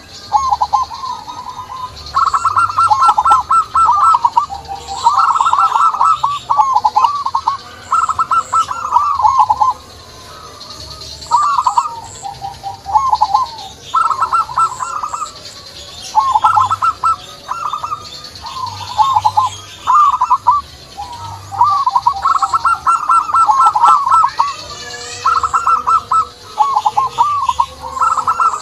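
Zebra doves (perkutut) cooing: rapid, staccato trilled coo phrases repeated every second or two. Fainter high chirps sound behind them.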